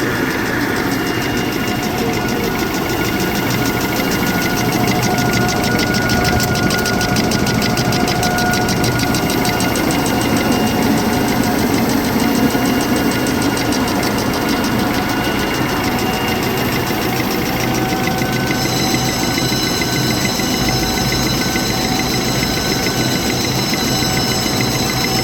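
XY-GU-20A automatic three-line box facial tissue machine running, a steady fast mechanical rattle over a hum. Some higher whining tones join about three-quarters of the way in.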